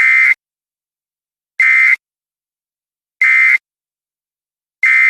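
Four short, harsh electronic data bursts, evenly spaced about a second and a half apart: the end-of-message tones of an Emergency Alert System broadcast, closing the alert.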